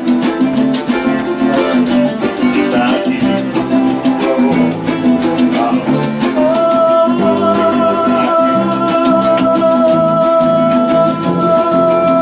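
Acoustic guitar strummed in a quick, steady rhythm with live singing. About six seconds in, one long high note comes in and is held steady, with a slight waver, to the end.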